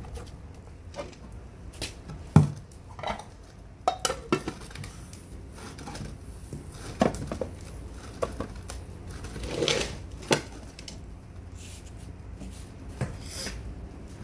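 Aluminium plate being set onto a cooking pot as a lid and pressed down onto its dough-lined rim: scattered metal clinks and knocks, the loudest about two seconds in.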